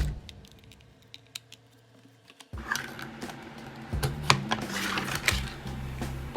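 Plastic doll packaging being handled and undone, giving many small, irregular clicks and crackles that start about two and a half seconds in, after a quiet opening.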